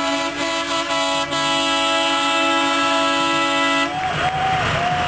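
A truck air horn held in one long, steady blast that cuts off about four seconds in. A siren then starts, warbling up and down about twice a second.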